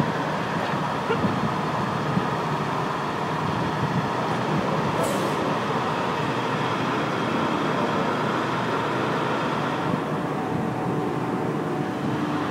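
Fire truck's diesel engine running steadily while the aerial ladder is worked from the turntable, with a short hiss about five seconds in.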